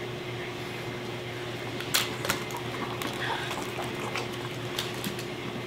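Steady hiss and faint hum of room tone, with a few short sharp clicks and knocks, the loudest about two seconds in and another pair near the end.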